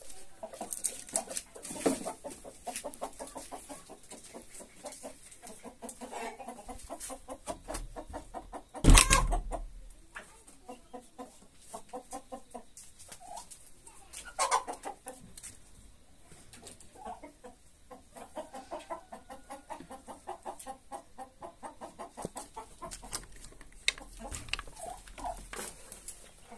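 A flock of domestic chickens clucking, a steady run of short quick clucks and calls, with one sudden loud sound about nine seconds in.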